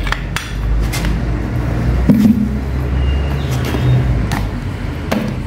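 Steady low machine drone, with a few light metallic clicks from a homemade pipe wrench being turned on the inner tie rod joint of a steering rack.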